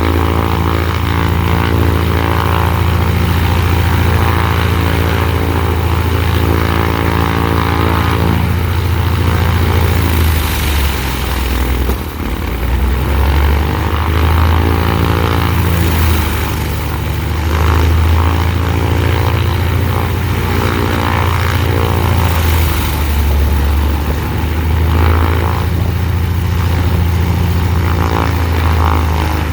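Cessna 182's six-cylinder piston engine and propeller running loudly and steadily during a ground run-up, the first since a new cylinder and a new exhaust system were fitted. The engine note dips and comes back up a few times.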